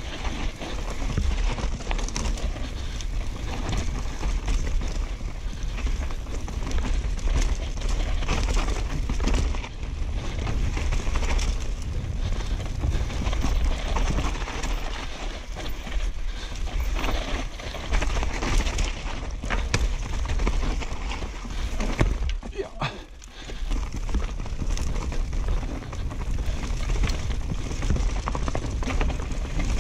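Downhill mountain bike ridden fast over a dirt forest trail, heard on an action camera's microphone: wind buffeting the mic, tyres on dirt, and frequent knocks and rattles from the bike over roots and rocks. There is a brief lull about 23 s in.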